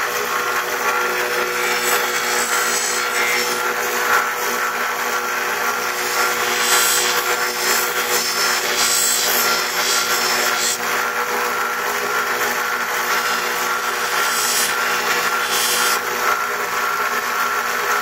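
An electric sharpening machine runs steadily while an AK-47 bayonet blade is ground on it. A constant motor hum sits under a continuous rasping grind that swells and eases slightly as the blade is worked.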